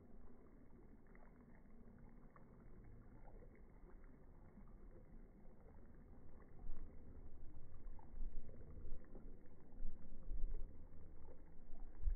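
Wind buffeting the microphone: a low rumble, faint at first and louder in uneven gusts from about six seconds in.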